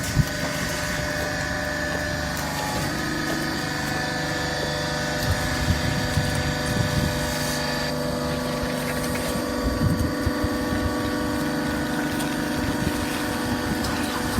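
Hydraulic horizontal baling press running steadily: a constant mechanical hum with several steady tones, and a few low thumps.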